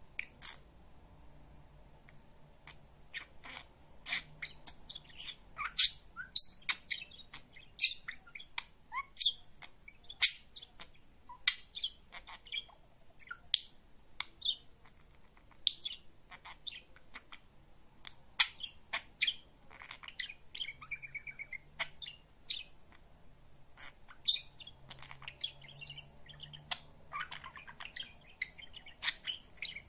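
Pet budgerigar chirping and chattering: a run of short, sharp, high chirps, with denser warbling stretches after about twenty seconds.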